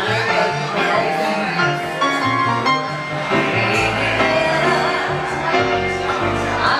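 Live music from a small band (a trio) playing a song, with a moving bass line under the melody.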